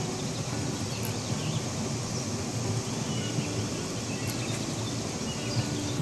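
Steady rushing noise of a waterfall, with a few faint bird chirps over it.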